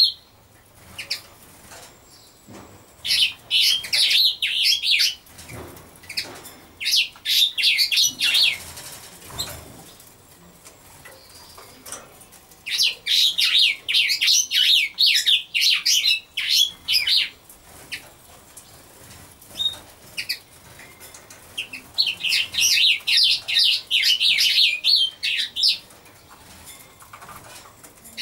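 Small songbird singing in phrases of rapid, high twittering, each a few seconds long, with pauses between them.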